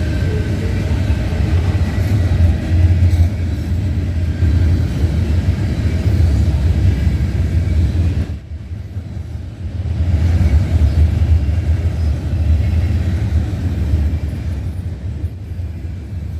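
Freight train cars rolling past on the main line with a steady low rumble. The rumble briefly drops about eight seconds in, then picks up again.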